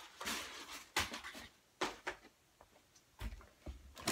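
Hands rummaging through a cardboard box of plastic-bagged electronics: irregular rustling and crinkling of plastic and cardboard, in several short bursts with a few sharp clicks and knocks.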